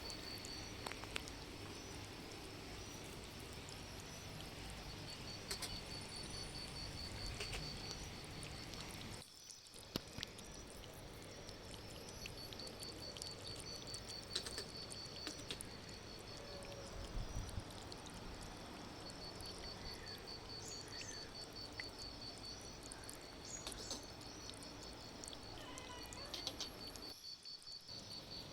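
Steady monsoon rain with an insect's high, rapidly pulsing trill over it and a few faint clicks.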